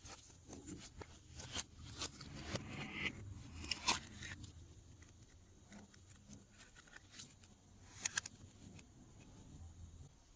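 Glossy slime being mixed and worked, giving irregular sticky clicks, crackles and scrapes, busiest in the first four seconds, with a pair of sharp clicks about eight seconds in.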